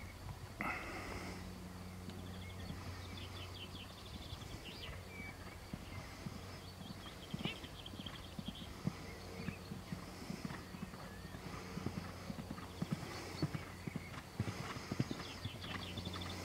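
Hoofbeats of a horse cantering over sand and turf, getting louder as it comes closer.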